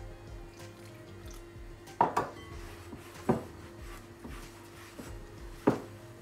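Glass mixing bowl knocking sharply as cornmeal dough is kneaded by hand in it: four knocks, a quick pair about two seconds in, then single ones about a second and three seconds later.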